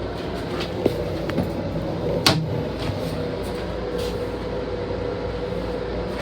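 Steady interior hum and rumble of a Long Island Rail Road M7 electric railcar, with a constant drone and a few sharp knocks, the loudest about two seconds in.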